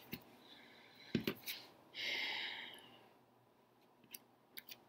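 Quiet handling of tarot cards on a table: a couple of light taps about a second in, a soft brushing slide lasting about a second, then a few small clicks near the end.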